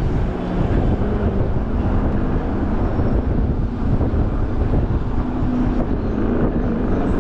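Steady street-traffic and road noise heard from a vehicle driving through city streets: a continuous low rumble with hiss and a faint engine hum.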